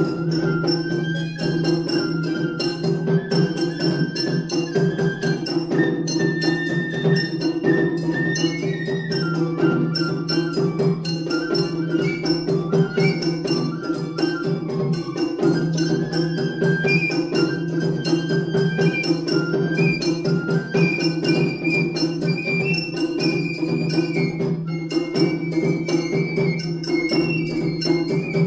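Matsuri bayashi festival music. A shinobue bamboo flute plays a high stepwise melody over rapid, dense shime-daiko drumming and a larger taiko, with metallic gong strikes.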